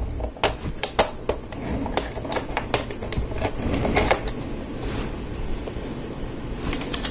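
Plastic Lego Technic parts clicking and snapping as a long beam is pressed onto the pins of a gearbox assembly. The clicks are irregular, come thick in the first four seconds and thin out after.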